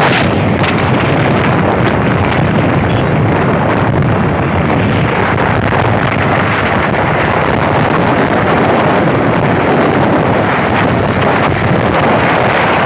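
Steady wind noise buffeting the microphone over the running noise of a moving vehicle.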